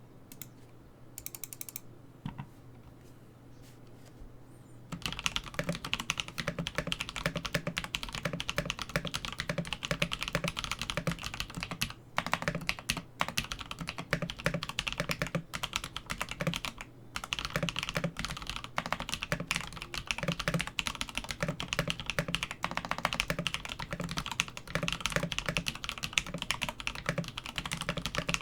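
Kemove Snowfox mechanical keyboard with 205g0-lubed Drop Holy Panda v2 tactile switches being typed on quickly, loud and clacky. The typing starts about five seconds in and runs on with only a couple of short pauses.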